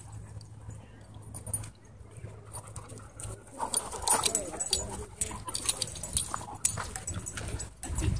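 Dogs wrestling at close quarters and vocalising, louder from about three and a half seconds in.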